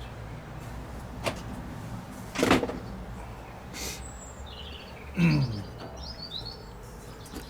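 A small bird chirping a few times in the background, over a low steady hum, among knocks and handling noises of tools and materials on a workbench; the loudest is a single thump about two and a half seconds in.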